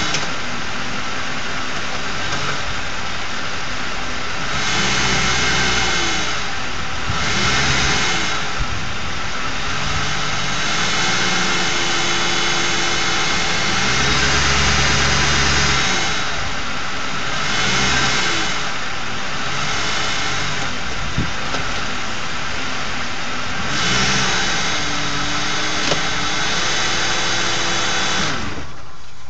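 Ford 4.6-litre two-valve V8 in a 2001 Crown Victoria running with a steady buzz, revved up and back down in several blips, then cutting off near the end. The owner puts the buzz down to a failed anti-drain-back valve in a Prime Guard oil filter.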